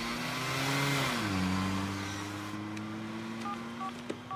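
Car engine running, heard from inside the cabin, its pitch falling about a second in as the car slows, then holding steady. Near the end, three short phone keypad beeps as an emergency call is dialed.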